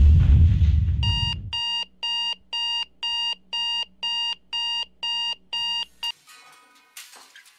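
A deep boom fading away, then a digital alarm clock going off: about two short electronic beeps a second, some ten in a row, cut off abruptly about six seconds in.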